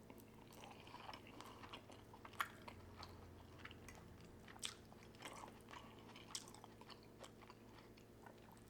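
Faint close-up sounds of a person chewing food, with soft wet mouth clicks and smacks. A couple of sharper clicks stand out.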